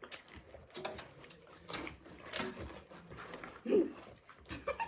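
People eating pani puri: scattered short crunches and clicks of the crisp puri shells being bitten and handled, with a brief vocal sound a little past the middle.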